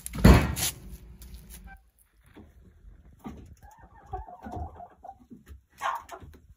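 A loud bang with a brief metallic ring at the start, while firewood is loaded into an outdoor wood boiler's firebox. Then, from about two seconds in, chickens cluck in the coop, with one sharp, loud squawk near the end.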